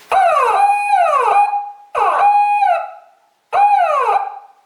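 Homemade anti-theft alarm's electronic siren set off by the door being opened. It sounds in three loud bursts of falling wails, each sweeping down and settling on a steady tone, and cuts off near the end.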